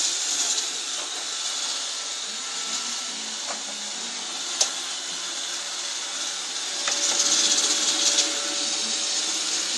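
Robot vacuum cleaner running with a steady whirring hiss, a little louder about seven seconds in, with a few faint clicks.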